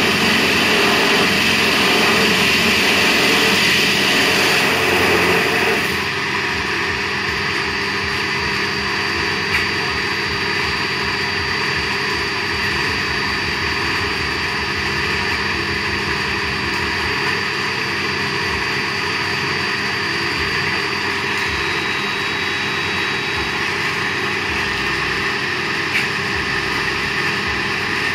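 Home-made band saw driven by a 4 kW spindle, running steadily with a rusty blade at a block of polystyrene. The noise is louder and harsher for the first six seconds or so, then drops a step and carries on steady with a thin high whine.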